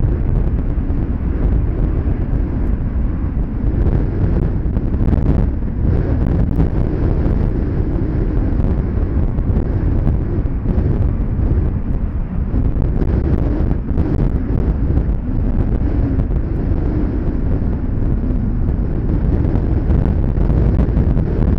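Steady low rumble of a jet airliner's engines, with wind buffeting the microphone.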